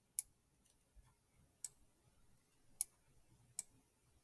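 Computer mouse clicking: four sharp, separate clicks at an uneven pace, with a fainter one about a second in.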